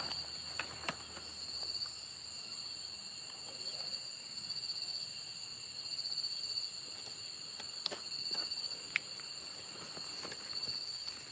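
Steady, high-pitched chorus of night insects, with a few brief sharp clicks about a second in and again near eight and nine seconds.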